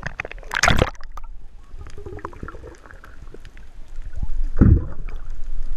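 Water sloshing and gurgling, with scattered small clicks and two louder splashes, one about half a second in and one about four and a half seconds in.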